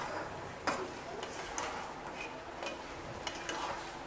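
A spatula stirring thick, sticky semiya kesari in a stainless steel pot, with scattered light clicks and scrapes as it knocks against the pot's sides and bottom.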